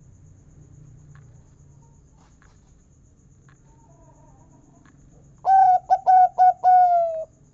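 Zebra dove (perkutut) singing one phrase of its cooing song, about two-thirds of the way in: about four short clipped notes followed by a longer note that falls slightly in pitch, the big 'kung' ending prized in perkutut song.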